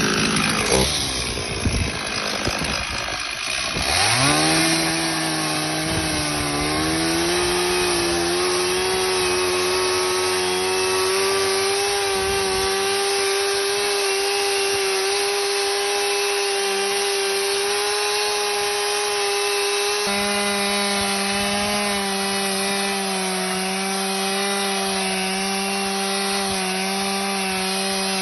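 Motor-driven saw cutting firewood. The first few seconds are uneven; about four seconds in the motor's pitch dips, then climbs and settles into a steady high-pitched running tone that holds as it cuts through the wood.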